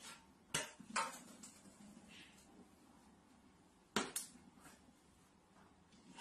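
Plastic water bottle knocking against a shelf as a cat paws it: two sharp knocks about half a second and a second in, then a louder knock about four seconds in as the bottle is set back down, with faint room tone between.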